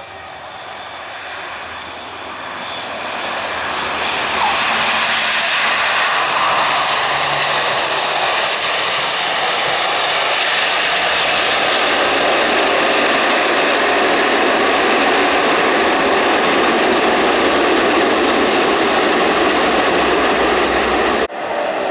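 Lockheed C-130H-30 Hercules landing and rolling down the runway, its four Allison T56 turboprop engines growing louder over the first four seconds, then holding a loud, steady noise. A high turbine whine falls in pitch as the aircraft passes. The sound drops out sharply for a moment near the end.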